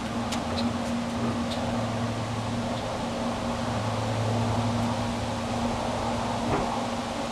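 Pellet smoker running with a steady electric fan hum. A few light clicks come in the first two seconds.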